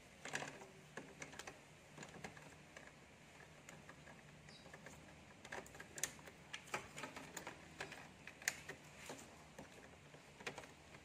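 Faint, irregular small plastic clicks and taps as gloved hands handle and seat the ink dampers and print-head parts inside an Epson L3210 printer's carriage.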